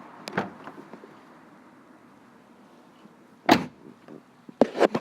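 A few light clicks over a faint hiss, then a loud sharp knock about three and a half seconds in and a quick run of sharp knocks near the end.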